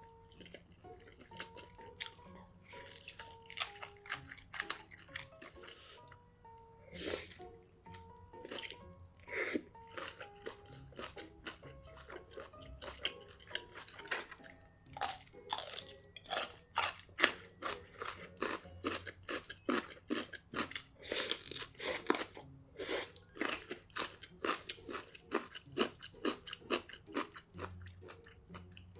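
Close-miked crunchy chewing and biting: a person eating something crisp, with many sharp crunches that come thick and fast from about halfway in. Soft background music with a gentle melody plays underneath.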